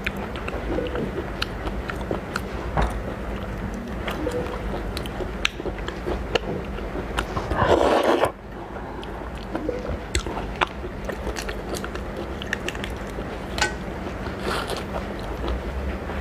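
Close-up eating sounds of a person biting and chewing raw lobster, with wet, crunchy clicks throughout. There is a louder burst of noise lasting about a second near the middle.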